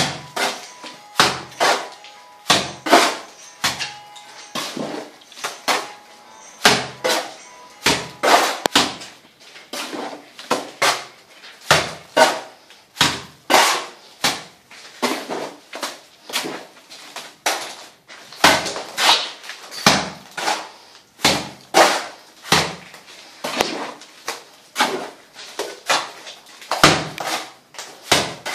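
Wet cement render thrown from a trowel onto a hollow clay-brick wall as its first rough coat, landing in a long irregular run of sharp wet slaps, about one to two a second.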